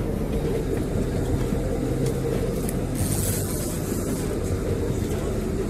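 Boat motor running steadily with a low, even drone.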